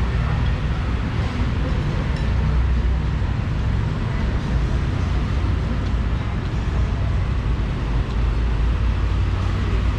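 Steady low rumble of background noise, with faint voices mixed in.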